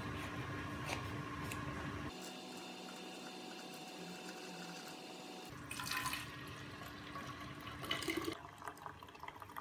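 A steady, fairly quiet hiss with a faint hum, like water or kitchen background noise, with a few light knocks and clatters as a lemon is cut on a plastic cutting board and a plastic container is handled, the loudest about 6 and 8 seconds in.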